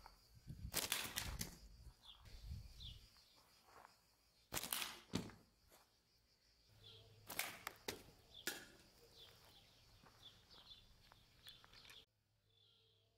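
Slingshot shooting: about four sharp snaps and knocks as the bands are released and the shot strikes metal drink cans, with faint bird chirps in between.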